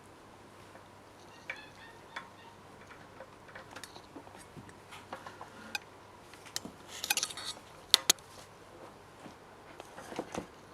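German Shepherd puppy giving a short burst of squeaky squeals about seven seconds in, among scattered light taps and clicks and two sharp clicks just after.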